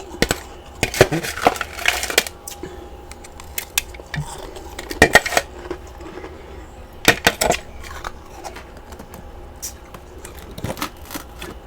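Close-up crunching of freezer frost chunks being bitten and chewed. The crisp crackling comes in bursts a few seconds apart, with softer chewing crackle between them.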